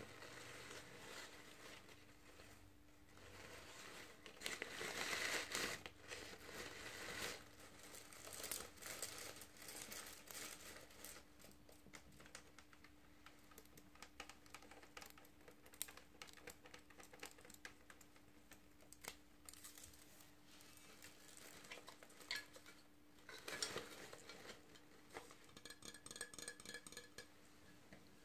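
Fingers rustling, scratching and crinkling artificial flowers' fabric petals and stiff plastic grass stems close to the microphone, with many sharp little clicks. There is a quick, even run of scratches near the end, and a faint steady hum underneath.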